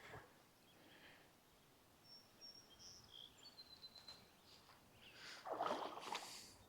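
Near silence with a few faint, high, short bird chirps in the middle. Near the end comes a brief noisy rush about a second long, the loudest sound.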